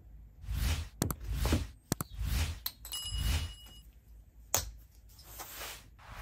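Steel sand-casting flask being closed: the sand-filled cope scrapes and shuffles as it is set onto the drag, with several sharp metallic knocks, the loudest about four and a half seconds in.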